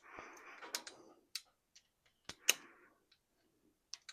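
Irregular sharp metallic clicks and taps of hand tools and a nut being worked on a motorcycle engine's cylinder-head stud, with a short scraping rustle in the first second.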